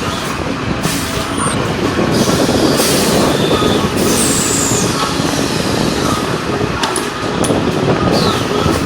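Carousel ironing press running, with a steady mechanical din and several sudden hissing releases as the presses work, plus a few short high squeaks.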